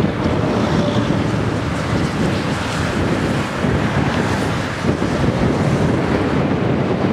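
Boeing 777 twin jet engines at takeoff thrust as the airliner rotates and lifts off, a loud, steady rushing noise mixed with wind buffeting the microphone.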